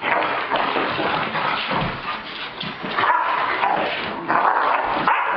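Two Dobermans play-fighting, making a continuous run of rough dog vocal noises, louder from about three seconds in and again a second later.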